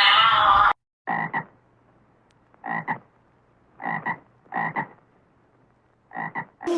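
An animal repeating a short croaking call five times, each a quick double note, after music cuts off abruptly about a second in.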